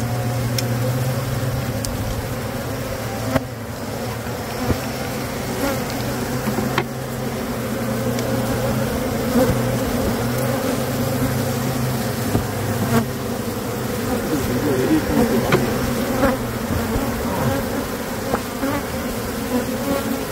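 A large colony of honey bees buzzing in a steady, dense hum, the colony exposed in its wall cavity during a cut-out.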